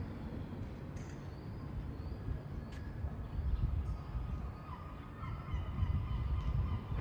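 Outdoor street ambience: an uneven low rumble, with faint bird calls in the second half.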